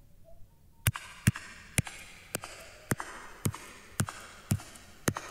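Footsteps of a woman's hard-soled shoes clicking on a floor at about two steps a second, each click trailed by a hall-like reverberation from a studio reverb effect set to a large hall.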